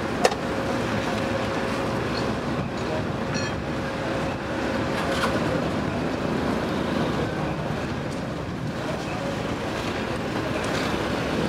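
Steady outdoor quayside noise, a wash of wind and distant machinery, with one sharp knock just after the start and a faint steady tone through the first five seconds.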